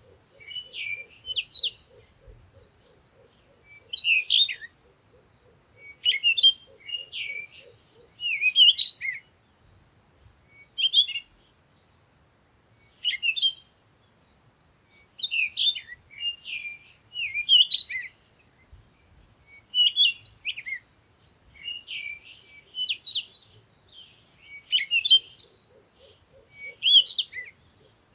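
Songbirds singing: short, quick chirping phrases repeated every second or two with brief pauses between. A faint, low, rapidly pulsing trill sits underneath for the first several seconds and again near the end.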